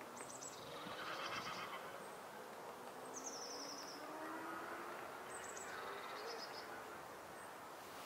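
Songbirds singing and calling in the background: three very high, thin trills a few seconds apart and brief bursts of chirping, over a steady outdoor hiss. No woodpecker tapping can be picked out.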